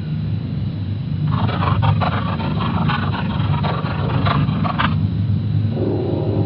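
A low, steady rumbling drone, with a run of crackling, glitchy static from about a second in to about five seconds in.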